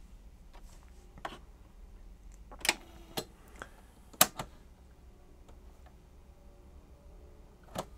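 Piano-key transport buttons of a Sanyo portable cassette recorder clunking as they are pressed: a handful of sharp mechanical clicks, the two loudest about a second and a half apart.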